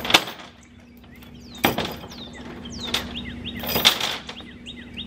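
Three loud knocks about two seconds apart as a man works on a log on a trailer, with small birds chirping repeatedly in between.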